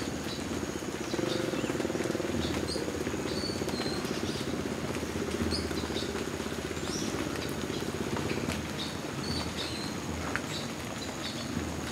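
Enduro dirt bike engine running at low revs with a fast, even pulsing, labouring as the bike is worked up a steep slope. It gets louder about a second in and eases off later.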